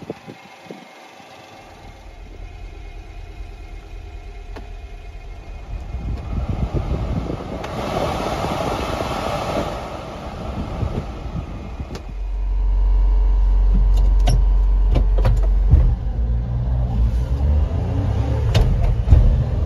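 Inside the cab of a 1992 Honda Acty mini truck. The heater blower fan runs for a few seconds midway, then the small three-cylinder engine, much louder and lower, takes over as the truck drives off, with a few sharp clicks and knocks.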